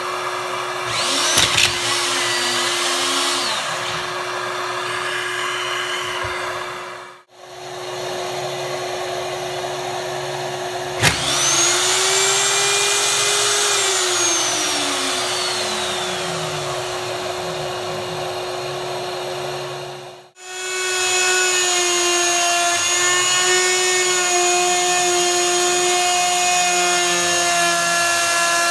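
DeWalt plunge router running at speed while routing a mortise in wood, a high steady whine with overtones. Near the middle a motor spins up sharply and winds down over several seconds, and the sound stops abruptly twice.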